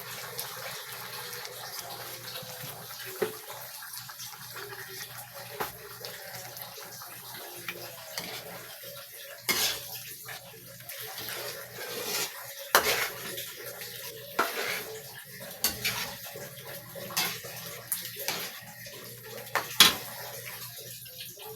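Water running with pots, dishes and utensils clattering at intervals, scattered clinks and knocks over it, like washing up or rinsing in a kitchen sink.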